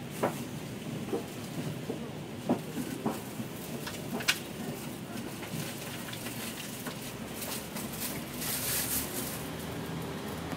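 Upper-deck cabin sound of a double-decker bus standing with its engine running: a steady low rumble with scattered sharp clicks and rattles. A louder hissing rush comes near the end.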